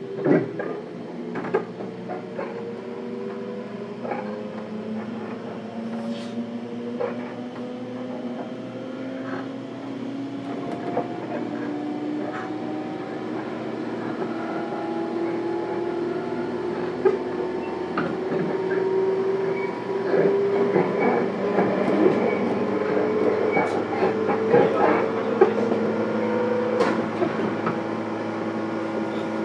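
JR Kyushu 415 series 1500-subseries electric train heard from aboard a motor car: the traction motors and gears whine in several tones that rise steadily in pitch as the train gathers speed, over running rumble and scattered clicks from the wheels crossing rail joints.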